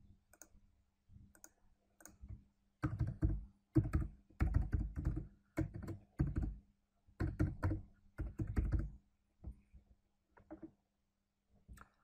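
Typing on a computer keyboard: quick runs of keystrokes in several bursts through the middle, with a few single clicks at the start and near the end.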